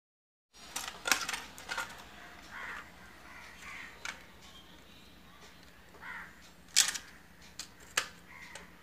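Scattered sharp clicks and taps as a screwdriver and hands handle a plastic electrical switch board, the loudest about a second in and near the seventh and eighth seconds.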